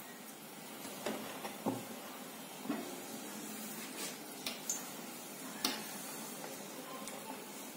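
Hot oil sizzling steadily in a steel kadai around a test drop of batter, showing the oil is hot enough for frying. A slotted steel spatula clinks against the pan several times.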